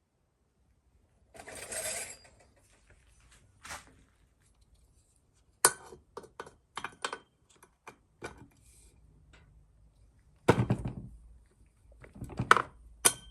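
Scattered metallic clinks and knocks of hard objects being handled and set down, with a louder clatter about ten seconds in.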